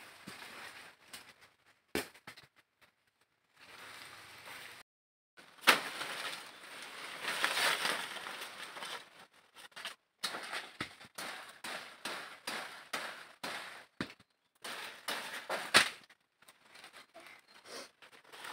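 Cacao tree branches and leaves rustling and cracking as someone climbs through them, with several sharp knocks and snaps; the loudest comes about six seconds in and again about sixteen seconds in.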